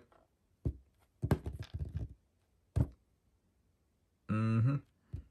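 Light knocks and clicks of hands and small plastic action-figure parts on a wooden tabletop: a single knock, then a quick run of taps about a second in, then one more. Near the end comes a short hummed voice sound.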